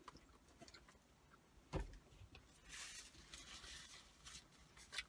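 Quiet eating sounds: small scattered mouth clicks while chewing, a single knock about two seconds in, then a paper napkin rustling for about a second and a half as it wipes the mouth.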